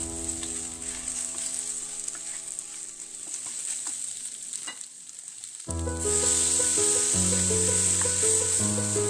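Boiled colocasia (arbi) slices sizzling in hot oil in a pan as they are stirred, with a few light clicks of the spatula; the sizzling grows louder about six seconds in. Background music plays over it, fading out for a moment and returning near the six-second mark.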